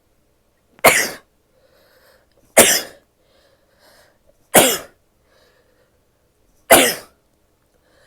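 A woman's four loud, sudden bursts of breath from the throat and nose, about two seconds apart, with faint breathing between them.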